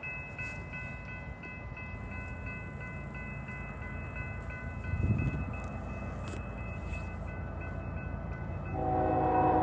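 Grade-crossing warning bell ringing in a steady, even rhythm over a low rumble. About nine seconds in, the approaching GE ES44C4 diesel locomotive starts to blow its multi-note horn, the loudest sound here.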